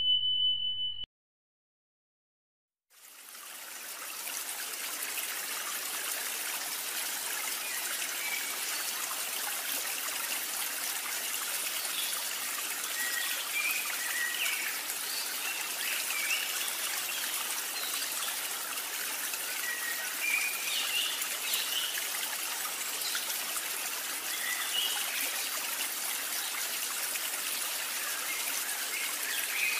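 Steady rushing of flowing water, like a stream, fading in a few seconds in and continuing evenly, with faint short bird chirps scattered through it. A chime tone ends just at the start.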